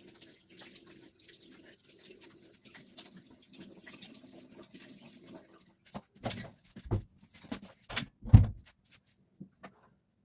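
Water splashing in a bathroom sink as hands wash a face, faint and irregular. About six seconds in it gives way to louder rustling and a few dull thumps as the towel is taken, the loudest thump near the end.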